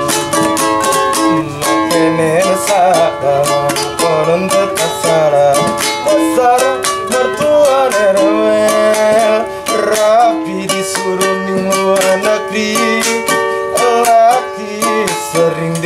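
Background music: a song with plucked-string accompaniment and a wavering melody line over it.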